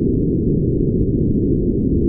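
Brown noise: a steady, even, deep hiss with no high end, unchanging throughout.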